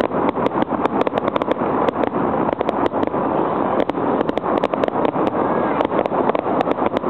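Fireworks display: a rapid, irregular run of sharp pops and crackles over a steady rushing noise.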